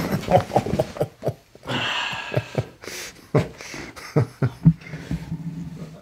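A man's breathy laughter and puffing exhales in short bursts, right after a chiropractic neck adjustment.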